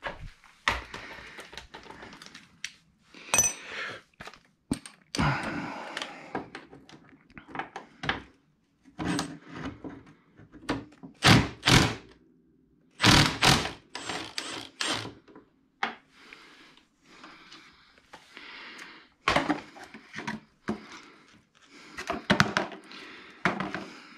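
Hand tools and metal parts being rummaged through and handled: irregular clanks, knocks and thunks, some in quick clattering clusters with a short metallic ring, separated by quiet gaps.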